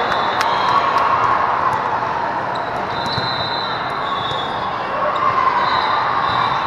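Indoor volleyball rally in a large hall with several courts: sharp ball contacts and short high shoe squeaks on the sport-court floor over a steady din of crowd chatter.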